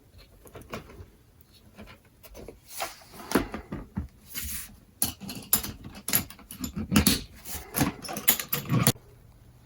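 Irregular clicks, knocks and rattles of wired electrical components and cables being handled and set down inside a toolbox, starting about two seconds in.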